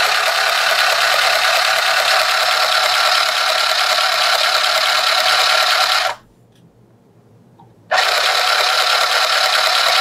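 Singer TS380 Tiny Serger running steadily at speed on its replacement cast-resin motor gear, stopping about six seconds in and starting up again about two seconds later.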